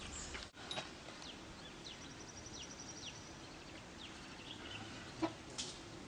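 Faint outdoor birdsong: many short, high chirps sliding downward and a brief rapid trill, with a single sharp knock about five seconds in.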